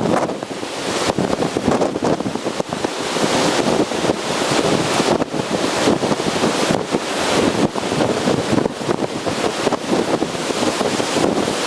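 Storm waves breaking on the Lake Erie shoreline in winds over 100 km/h, with gusts buffeting the microphone in a loud, surging roar of noise.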